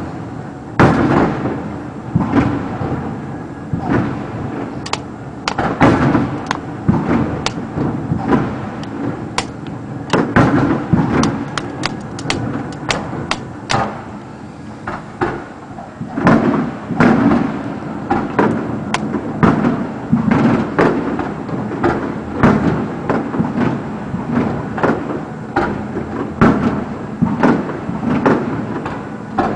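Aerial fireworks display going off: an irregular run of sharp bangs and booms, often several in quick succession, over a constant rumble.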